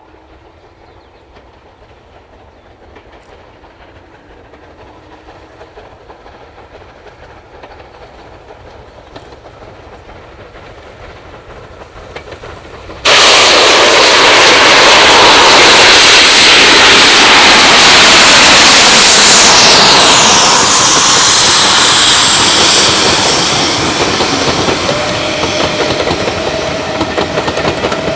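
Steam train approaching, faint at first and slowly growing louder. About halfway through it suddenly becomes very loud, a full rushing and clattering sound as it passes close by, then eases off toward the end.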